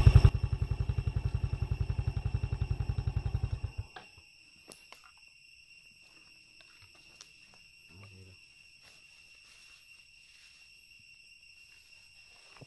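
Motorcycle engine idling with a steady, even pulse, cutting off abruptly about four seconds in. After that, only a faint steady high-pitched insect whine remains.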